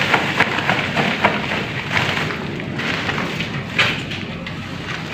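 Crinkling and rustling of a plastic bag and loose debris being handled, a dense run of small crackles with one sharper crackle about four seconds in.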